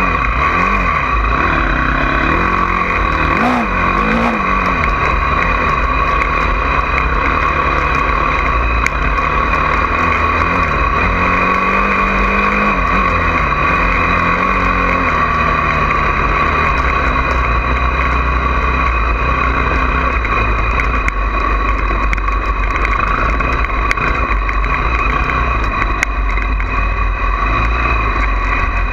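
Honda CRF450R dirt bike's single-cylinder four-stroke engine running under throttle, its pitch rising and falling now and then, under a loud, steady rushing noise.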